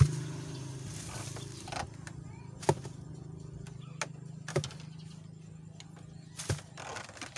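A steady low motor hum runs underneath, broken by several short, sharp knocks spread a second or two apart.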